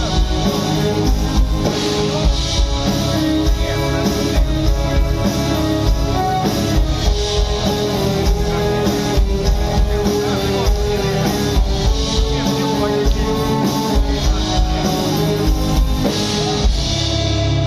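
Live rock band playing an instrumental passage: guitars and bass over a drum kit with a steady kick-drum beat, ending on a held chord near the end.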